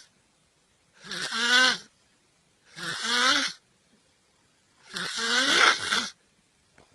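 A person snoring: three snores about two seconds apart, each lasting about a second, a rasping breath with a pitched tone running through it.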